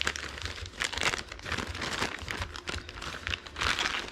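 Plastic packaging crinkling and rustling as a motherboard is taken out of its box, in bursts, loudest about a second in and again near the end.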